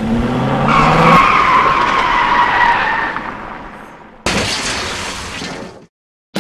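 Car sound effect: an engine revs briefly, then tyres screech in one long skid that slowly falls in pitch and fades. About four seconds in a second loud rush of noise starts and dies away.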